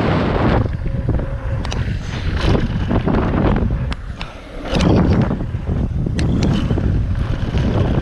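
Wind rushing over an action camera's microphone as a mountain bike rolls fast down a dirt trail, with tyre noise and many sharp clicks and rattles from the bike. The level drops briefly about four seconds in.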